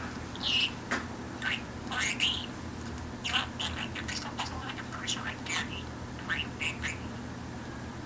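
A pet budgerigar chattering in short, scattered chirps and squeaks, with the recording played backwards.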